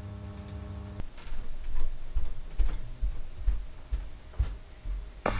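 2-meter FM repeater signal on a Kenwood TR-7950 transceiver. For about a second an open carrier with a steady hum and no voice, then the signal drops out and only faint irregular ticks and low thumps remain. Near the end the carrier and its hum come back.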